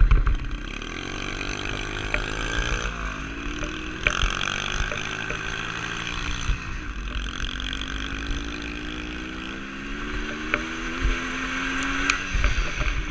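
Dirt bike engine running under way, its pitch climbing and then dropping sharply at each gear change, about three times, with a low wind rumble on the microphone.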